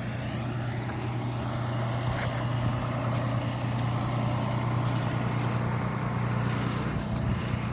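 A large vehicle's engine idling, a steady low hum under a noisy rumble.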